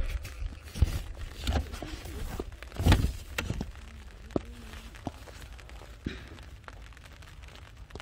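Wind rumbling on the microphone, with several irregular dull thumps and a couple of sharp clicks from the phone being handled under an umbrella in the rain.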